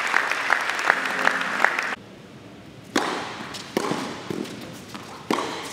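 Scattered applause and clapping for about two seconds, cut off abruptly. Then tennis shots: three sharp racket strikes on the ball, each with a short echo.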